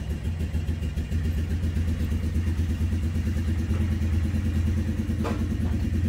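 Motorcycle engine idling steadily, with one short knock about five seconds in.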